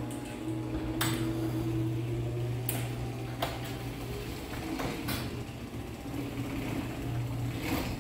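Linear LDCO850 garage door opener running through a force-setting cycle, its motor giving a steady low hum as it raises the sectional door, with several sharp clicks along the way. It runs quietly.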